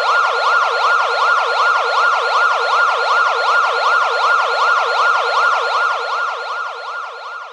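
Ambulance siren in a fast yelp, its pitch rising and falling about three times a second, fading near the end.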